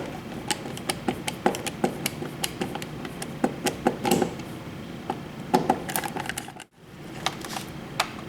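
Irregular small metallic clicks and ticks of a screwdriver working at the old wall light switch, backing out its mounting screws so it can be pulled from the wall box. The clicks break off briefly about two-thirds of the way through.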